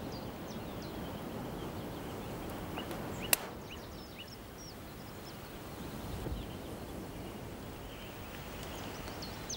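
Outdoor ambience: a steady background hiss with small birds chirping now and then, and one sharp click about three and a half seconds in.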